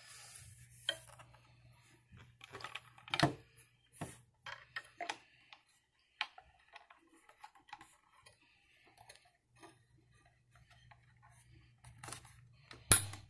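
Scattered clicks and knocks of a hard plastic desk phone and its headset cable being handled as the headset plug is pushed into the phone's jack, with the sharpest click near the end.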